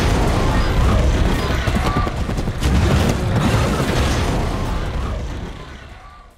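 Cinematic action sound effects: a loud, dense mix of booms and crackle with heavy bass, fading out over the last second.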